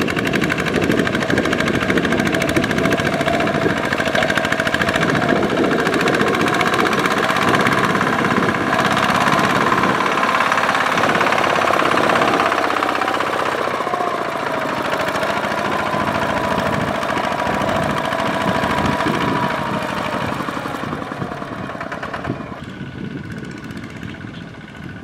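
Single-cylinder diesel engine of a Kubota RT155 walking tractor running hard under load as the tractor pulls through deep mud. The sound is loud and steady with a fast knocking pulse, and eases somewhat near the end.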